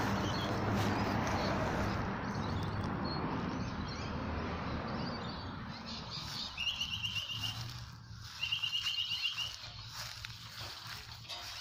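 Road traffic noise fading away, then two short, high, rapid trills a little over a second apart from a small animal.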